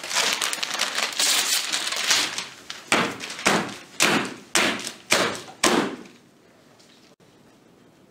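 People laughing: a long unbroken stretch of breathy laughter, then about six separate short bursts, roughly two a second, that die away about six seconds in.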